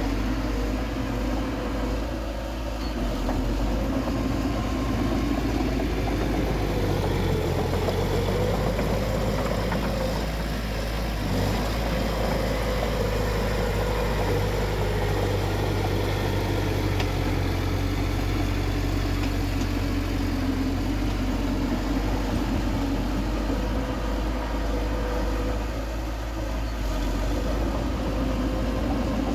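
Bulldozer's heavy diesel engine running steadily, its pitch rising slightly about a quarter of the way in, then settling.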